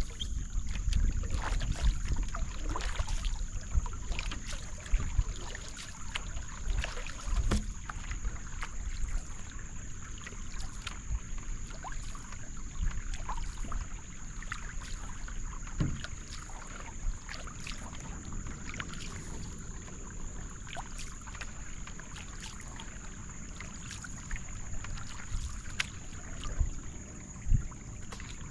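Paddle strokes beside a Wenonah J-210 marathon racing canoe: repeated small splashes and drips as the blade dips and lifts, with water washing along the hull. Some low wind rumble on the microphone in the first few seconds.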